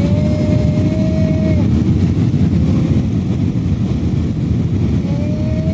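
Steady low roar of jet airliner cabin noise, the engines and airflow heard from a seat over the wing during descent. A thin, drawn-out higher tone sounds near the start and again near the end.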